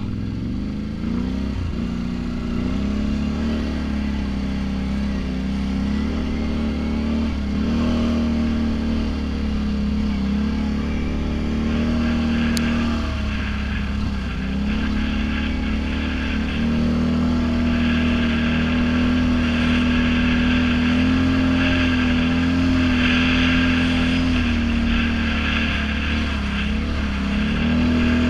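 Snorkeled ATV engine running under throttle while riding a dirt trail. Its pitch dips and picks up again a few times as the throttle is eased off and reapplied.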